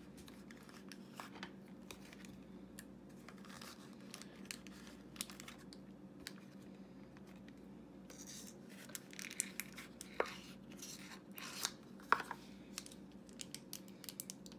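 A small toy-accessory packet being handled and torn open by hand: scattered light crinkles and tearing, busiest from about eight to twelve seconds in.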